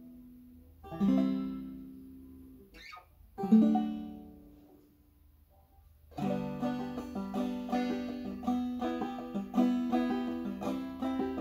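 Banjo strumming: three single chords, each left to ring out and fade, about two seconds apart, then about six seconds in a steady rhythmic strum starts up and carries on.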